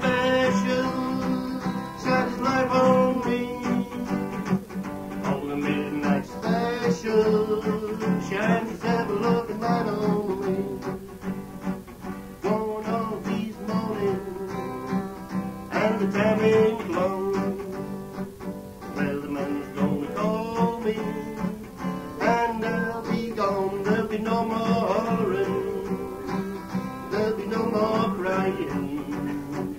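Live acoustic folk music led by guitar, with a melody line over it, on an old cassette recording of a folk club night.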